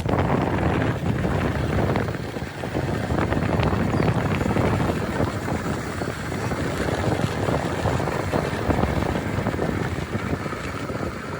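Small Hero motorcycle engine running while the bike is ridden over a rough off-road track, with wind buffeting the microphone.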